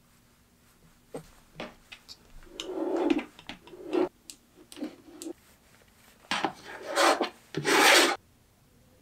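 Glass slicker rubbed in strokes over the flesh side of a leather strap coated with Tokonole burnishing gum, slicking down the fibres. A few light clicks come first, then a run of rubbing strokes starting a few seconds in, the last ones loudest.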